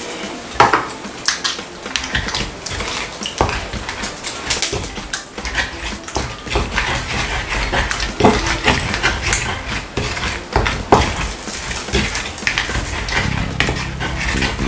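Wooden pestle (tapoli) mashing and grinding tomatoes, onion and pepper in an earthenware grinding bowl (asanka): irregular rubbing and scraping with many small knocks of wood against clay.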